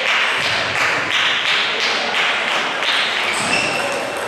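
Table tennis rally: the celluloid ball clicking back and forth off the paddles and the table, about three hits a second, each hit ringing on in a large hall. A few short squeaks come near the end.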